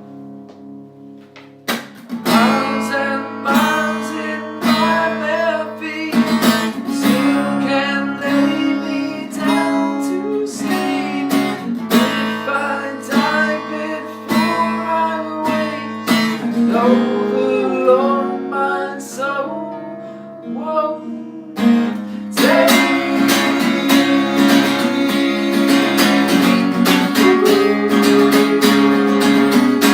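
Acoustic guitars playing an instrumental break of a country song: a fading note, then picked melody notes over strummed chords from about two seconds in, the strumming growing fuller and steadier about three-quarters of the way through.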